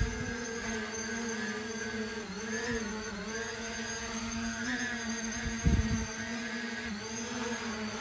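Parrot Anafi Ai quadcopter's propellers whining steadily as it comes in to land, the pitch wavering slightly as it manoeuvres. The whine drops and cuts off at the very end as the motors stop on touchdown. Two brief low rumbles, one about two-thirds of the way in, are louder than the whine.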